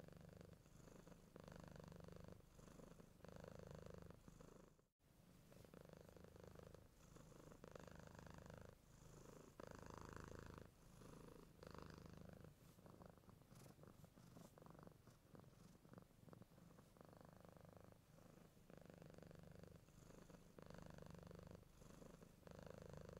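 Tabby mother cat purring softly and close up, the low purr swelling and fading with each breath about once a second.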